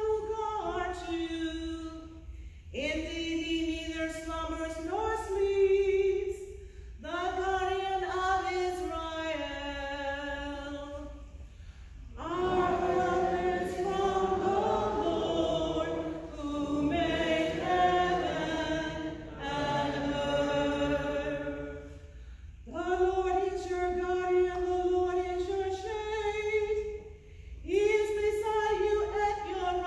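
A cantor sings the responsorial psalm unaccompanied, in phrases of a few seconds each with short breaks between them. From about twelve to twenty-two seconds in, more voices join in a fuller sung refrain, then the solo voice carries on.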